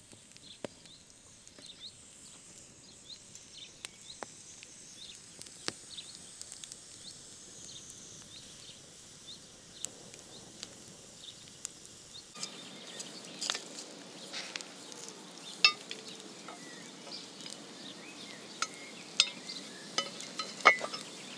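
Wood campfire crackling faintly, with scattered small pops and, in the second half, a few louder sharp clicks.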